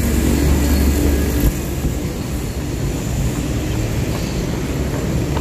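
Road traffic on a city street, picked up by a smartphone's microphone. A deep rumble in the first second and a half stops abruptly, leaving a steady traffic noise.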